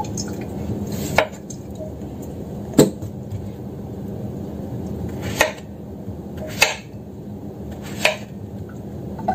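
Kitchen knife slicing a peeled hairy melon (chi qua) into thick rounds, each cut ending in a sharp knock of the blade on the cutting board: five knocks, one every one to two and a half seconds.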